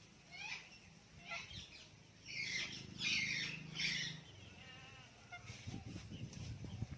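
Ringneck parrot calling: a few short chirps, then a run of loud, harsh screeches about two to four seconds in, fading to fainter calls.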